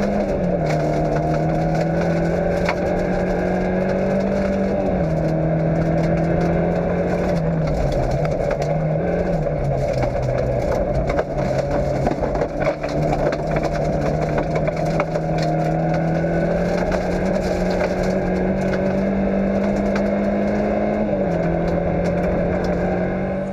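Fiat Cinquecento rally car's engine, heard from inside the car, pulling hard on a gravel stage; its note drops and climbs back several times with gear changes and throttle. Gravel and stones crackle and tick against the car's underside throughout, heaviest about halfway through.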